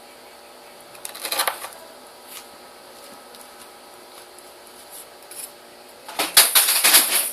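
A knife blade slicing through thin phone-book paper, with the paper rustling as it is handled: a short burst of crisp rustling about a second in, then a longer, louder one near the end.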